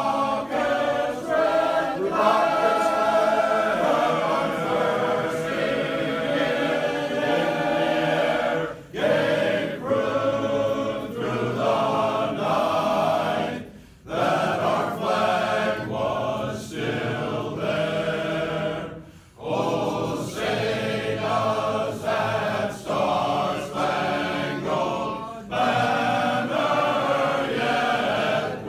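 Men's chorus singing a patriotic song unaccompanied, in long phrases with brief pauses for breath.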